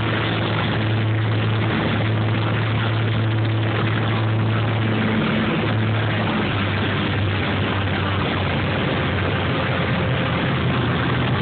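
Cabin noise of a Piper Chieftain's twin turbocharged Lycoming six-cylinder piston engines and propellers, a steady loud drone on final approach; the hum drops slightly in pitch about six seconds in.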